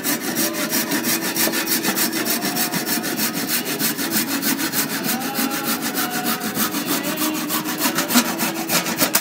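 Fast, even scraping strokes of wood, about five a second, like rubbing or rasping on wood, stopping just before the end.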